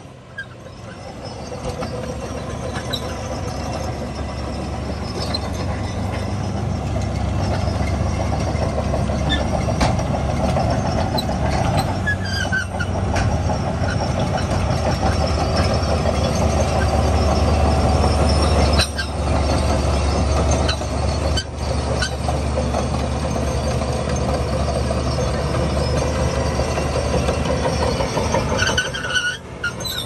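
Shantui DH17 crawler bulldozer working in sand: its diesel engine runs steadily under load while the steel tracks rattle, with a few brief squeaks. The sound builds over the first couple of seconds.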